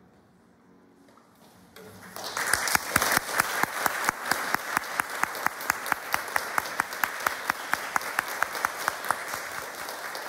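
Audience applause breaks out about two seconds in and carries on, with individual claps standing out at a steady rate of about four a second.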